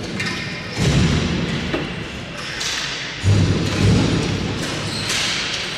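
Two heavy thuds against the rink's boards and glass during ball hockey play, about a second in and again a little past three seconds, each ringing on briefly in the arena, with lighter stick and ball clatter between them.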